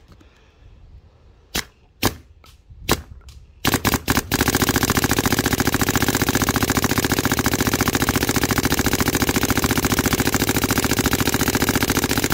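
DLX Luxe electropneumatic paintball marker firing: a few single shots, a short burst, then from about four seconds in a very rapid, unbroken stream of shots, ramping fire with no rate cap.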